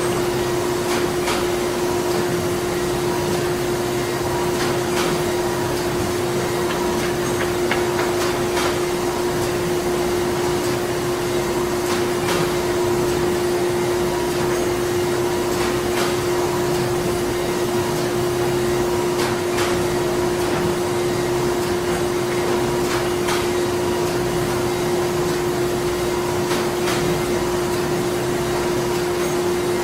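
Printing plant machinery running steadily: a constant hum with one clear held tone over a wide wash of machine noise, and occasional light clicks scattered through it.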